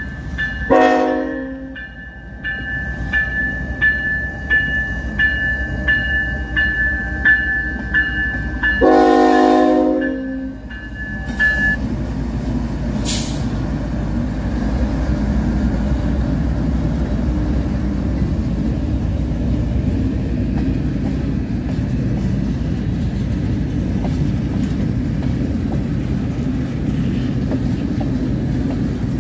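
CN ES44AC locomotive's Nathan K5HL horn sounding a short blast, then a long blast about nine seconds in, over its bell ringing about twice a second; the bell stops around twelve seconds in. Then a train of tank cars rolls past steadily, with one sharp high squeak or clank about thirteen seconds in.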